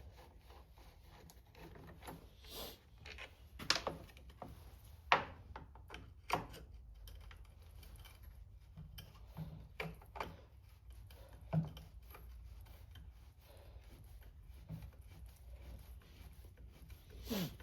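Scattered clicks, taps and knocks of Homelite C5 chainsaw parts and tools being handled during disassembly, over a low steady hum.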